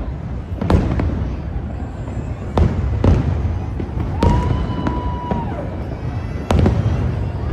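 Fireworks going off: sharp bangs every second or two over a continuous low rumble, with a steady high whistle about four seconds in that lasts about a second before dropping away.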